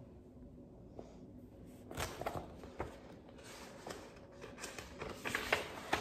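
Pages and cover of a large paperback picture book being handled and turned: irregular paper rustling and soft crinkles with a few sharper clicks, starting about two seconds in.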